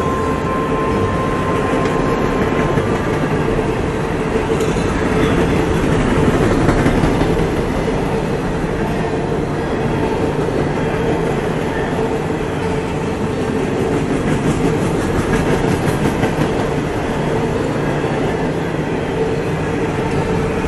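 Open-top hopper cars of a CSX freight train rolling past close by: a steady, loud rumble and clatter of steel wheels on the rail.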